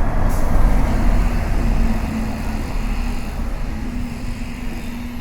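City street traffic: vehicle engines and road noise with a steady low engine hum, gradually getting quieter over the last few seconds.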